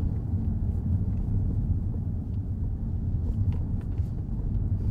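Steady low rumble of a car driving, the road and engine noise heard from inside the cabin.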